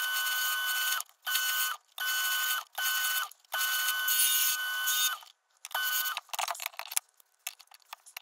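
A turning chisel cutting a wooden screwdriver handle spinning on a wood lathe, in about five separate passes, each a scrape with a steady whine, with short silences between them as the tool comes off the wood. From about six seconds in there are only short, scattered scrapes.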